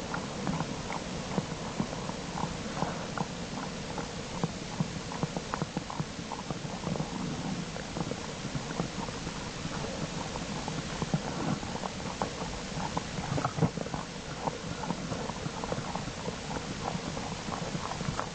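Black bear cubs making their nursing hum, a continuous rapid, purring rumble with soft clicks and rustling mixed in.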